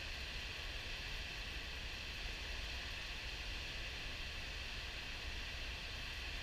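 River water pouring over a diversion dam's spillway at high flow: a steady rush of falling, churning water with a low rumble underneath.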